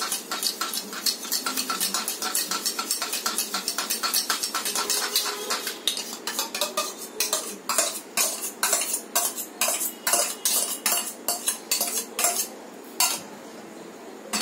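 Metal spoon beating sour curd in a small steel bowl, clinking quickly against the sides at about five strokes a second. About six seconds in it changes to slower, louder knocks as the spoon scrapes the curd out of the bowl onto a steel plate, and it goes quieter near the end.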